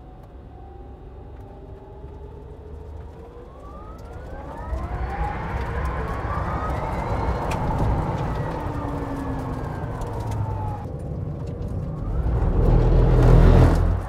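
Rimac Nevera's electric motors whining inside the cabin, the pitch climbing steadily as the car accelerates hard, then falling away as it slows. About twelve seconds in, the whine rises again over a loud rush of road and tyre noise as it accelerates once more.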